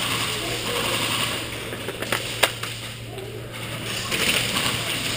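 Electric airsoft guns firing rapid full-auto bursts, a fast mechanical chatter of gearbox and BBs, with a sharp snap of an impact or shot about two and a half seconds in.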